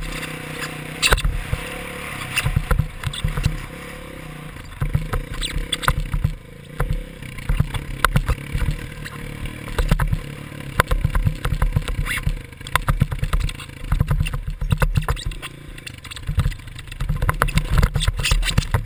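Dirt bike engine revving up and down as it is ridden over a motocross track, heard from a helmet-mounted camera, with many sharp knocks and rumbling through it.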